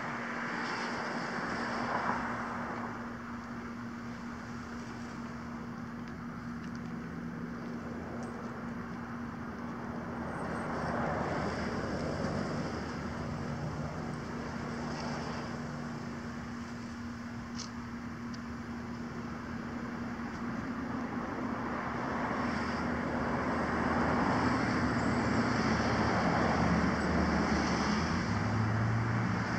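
Steady road traffic hum with a low, even engine drone under it. Passing vehicles swell louder about a third of the way in and again near the end.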